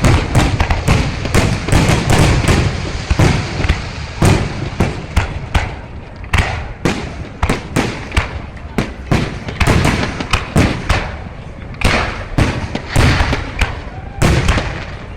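Fireworks display: a dense run of sharp bangs and crackles, several a second, with louder clusters near the start and a couple of seconds before the end.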